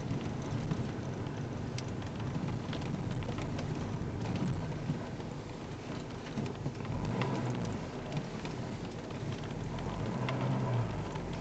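Car cabin noise while driving slowly: a steady low engine and road rumble with many small irregular clicks and rattles scattered through it.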